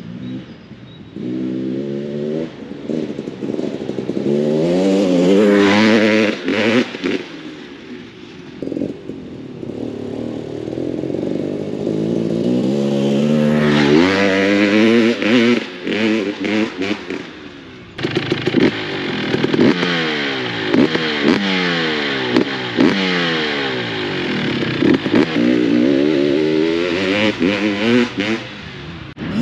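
Enduro dirt bike riding past a few times, its engine revving up and down so the pitch keeps rising and falling, loudest as it passes close.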